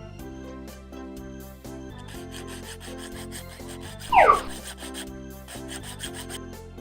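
Light background music for children with a steady, evenly repeating beat, and one short loud rising squeak about four seconds in.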